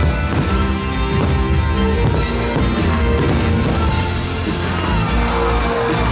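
Fireworks show soundtrack music playing loudly and continuously, with a few firework bangs mixed in.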